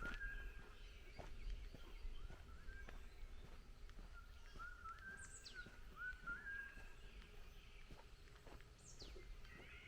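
Forest birds singing: a short whistled phrase, each note rising then held, repeated several times, and twice a thin high note that falls steeply in pitch. Faint overall.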